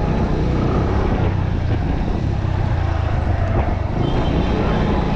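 Motorcycle engine running steadily while riding, heard from the pillion seat with a low road and wind rumble.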